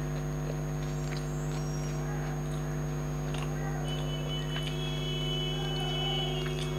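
Eating by hand: soft scattered wet clicks of fingers mixing rice with curry, and of chewing, over a steady electrical hum. A thin high steady tone comes in about four seconds in and lasts a couple of seconds.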